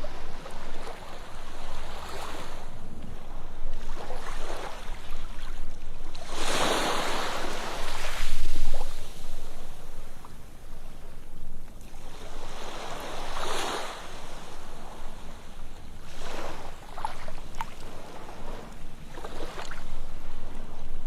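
Ocean surf washing onto a sandy beach, waves swelling and drawing back again and again; the biggest breaks come about seven seconds in and again around thirteen seconds.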